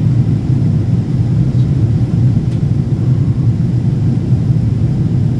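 Steady low rumble of engine and airflow noise inside the cabin of a Boeing 777-200ER on approach, heard from a window seat over the wing.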